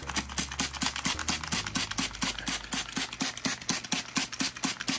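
Plastic trigger spray bottle squeezed rapidly, about six short hissing sprays a second, misting water into a glass dart frog enclosure.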